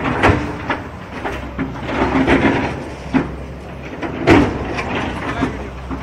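Heavy earthmoving machinery demolishing buildings: a diesel engine running steadily under several knocks and scrapes of breaking masonry and debris, the loudest about four seconds in.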